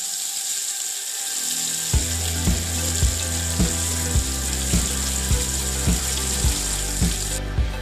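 Masala-coated tilapia shallow-frying in oil in a pan, a steady sizzle that cuts off suddenly near the end. Background music with a steady beat of about two a second comes in about two seconds in.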